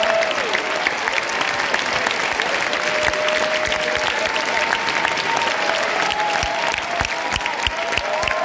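Theatre audience applauding steadily at a curtain call, dense clapping with a few long, drawn-out calls held over it.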